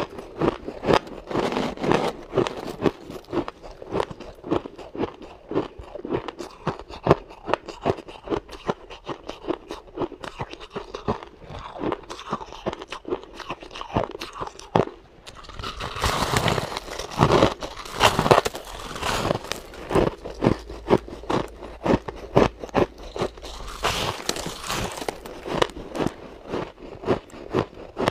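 A person biting off and chewing packed chunks of shaved ice close to the microphone: a steady run of crisp crunches, several a second, growing louder and denser about sixteen seconds in and again near twenty-four seconds.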